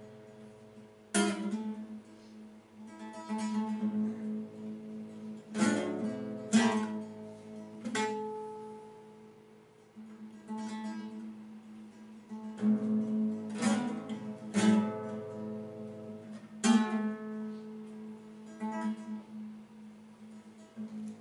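Classical nylon-string guitar played solo: loud strummed chords struck every one to several seconds and left to ring, over a steady low note.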